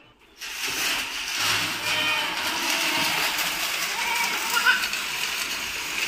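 Grain feed mix being scattered by hand from bowls into metal feed troughs: a steady rustling hiss of falling grain that starts about half a second in.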